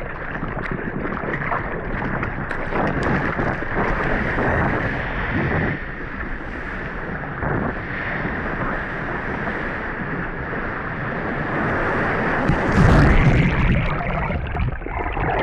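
Ocean surf washing and wind buffeting the microphone, with a louder low rush near the end.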